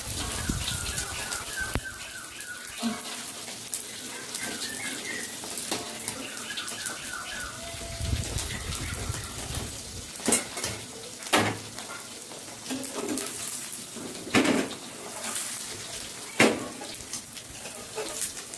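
Eggs frying in oil in a nonstick frying pan, with a steady high sizzle. A metal spatula knocks sharply against the pan about four times in the second half.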